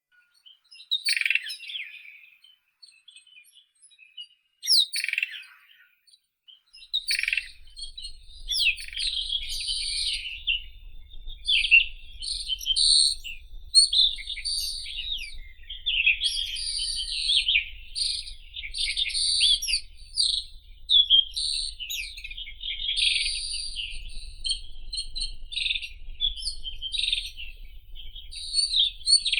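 White-throated robin singing: a few short separate phrases at first, then from about eight seconds in a fast, near-continuous run of varied high chirping and warbling notes. A low rumble sits underneath from about seven seconds in.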